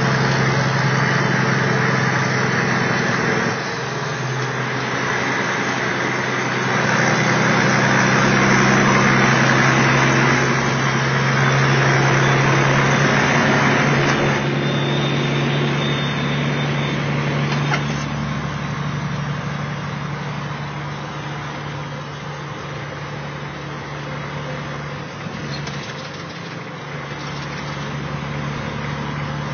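Kenworth T600A semi's Caterpillar diesel engine running steadily at highway speed, heard from inside the cab with loud road noise. The road noise is strongest at first and fades between about 14 and 22 seconds as the truck leaves a tunnel, leaving the engine's low drone.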